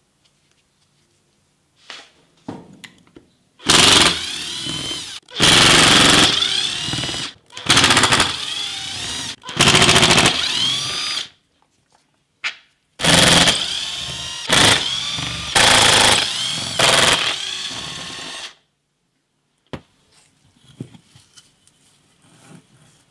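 A handheld power tool run in about seven rattling bursts of one to two seconds each, its motor pitch rising and falling within each burst, with a short pause about halfway through. Faint clicks and handling of parts come before and after.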